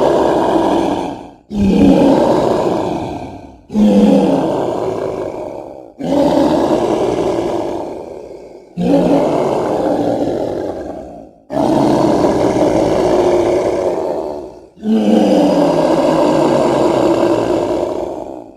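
A string of deep, drawn-out dinosaur roar sound effects made up for the Kasai rex, about seven in a row. Each starts abruptly and fades away over two to three seconds, with a short gap before the next.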